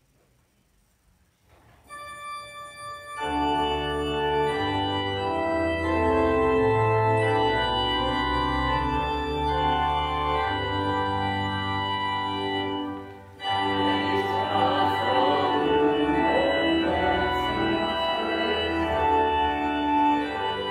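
Organ playing sustained chords. It comes in softly about two seconds in, swells to full a second later, breaks off briefly just past the middle, and resumes.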